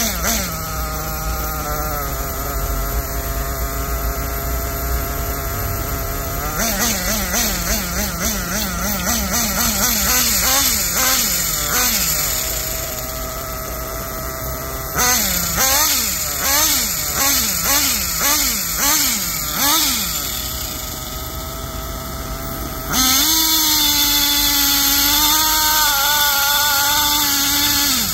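Kyosho RC truggy's small nitro glow engine running: idling steadily, then revved in a series of quick throttle blips, about one or two a second, and about 23 seconds in settling to a higher, steady speed.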